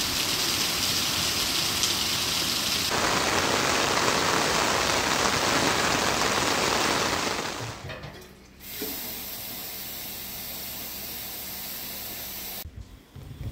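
Steady rush of running water. About eight seconds in it gives way to a quieter, even noise with a low hum.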